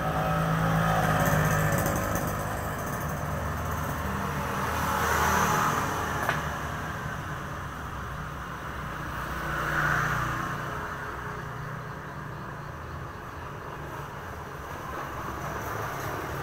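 Passing motor traffic: engines running steadily, with two vehicles swelling louder and fading, about five and ten seconds in.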